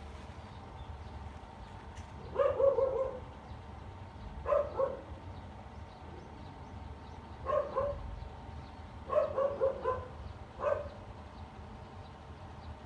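A dog barking in several short runs of quick barks.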